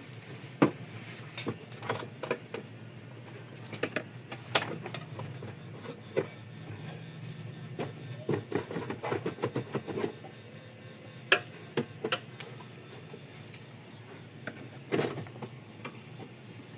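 Hand tools clinking and tapping on engine parts while a part is taken off the engine: irregular sharp clicks and knocks, busiest a little past the middle, over a faint steady low hum.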